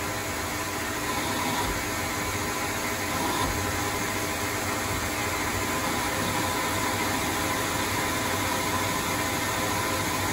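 Proto-Trak L2 CNC lathe running a rough-turning cycle on a shaft: a steady whirring hum with a faint high tone held throughout.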